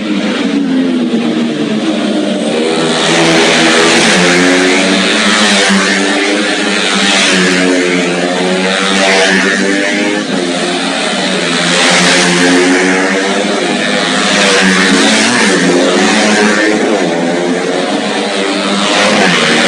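Several small racing motorcycle engines running hard at once, their overlapping notes rising and falling in pitch as they rev.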